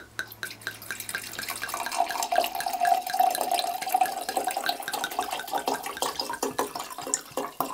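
Red wine being poured from a bottle into a glass: a run of quick little gurgles, with a steady note from about two seconds in to about five.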